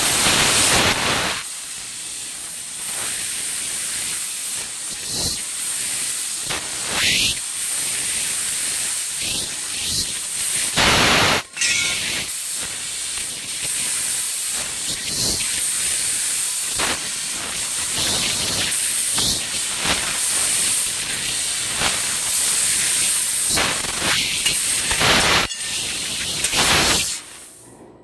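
Fiber laser tube cutting machine cutting a metal tube: a steady hiss from the cutting head, with a thin high whine above it, broken by louder rushes at the start, about eleven seconds in and near the end. The hiss drops away just before the end.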